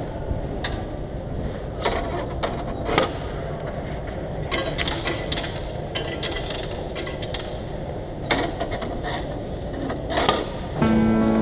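Paris Métro ticket vending machine being used: a run of sharp clicks and clunks from its mechanism over a steady low hum, with a louder clatter about ten seconds in as something drops into the collection tray.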